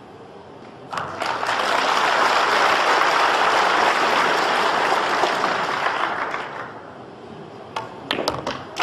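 Audience applause breaks out about a second in, holds steady, and dies away after about six seconds. A few sharp clicks come near the end.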